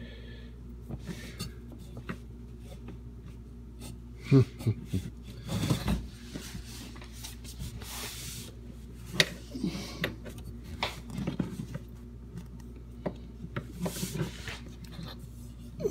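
Hands and forearm rubbing and knocking against the plastic parts under a dishwasher while a hose is worked onto its water inlet valve. Scattered rustles and small clicks, with a few sharper knocks; the loudest comes about four seconds in.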